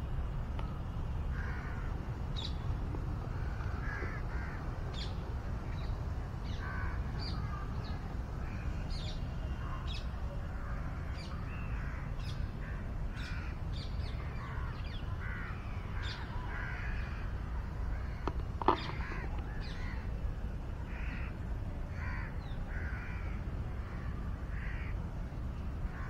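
Crows cawing repeatedly over a steady low rumble, with one sharp click about two-thirds of the way through.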